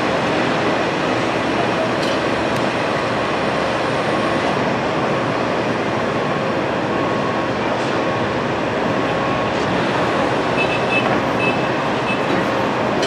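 Steady, unbroken mechanical noise at an even level, with a few faint short high tones about ten seconds in.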